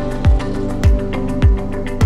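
Background music with a steady beat: a deep kick drum a little under twice a second under sustained instrumental tones.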